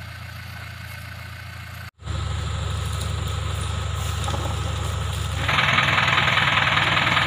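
Lorry engine idling with a steady low hum, broken by a brief cut about two seconds in, then louder; a fuller, louder noise joins about two-thirds of the way through.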